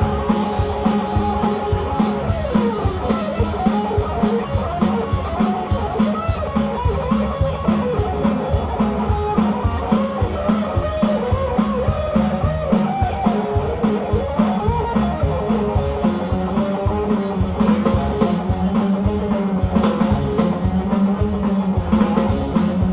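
Live rock band playing an instrumental break: an electric guitar lead line over electric bass and a steady drum-kit beat, with no singing.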